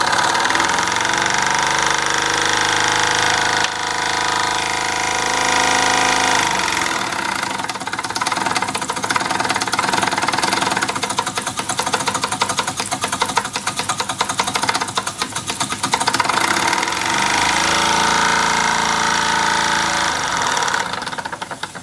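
Mamod SE3 twin-cylinder toy steam engine running under steam with its throttle partly opened. It runs steadily, and the character of its beat changes about six seconds in and again near the end.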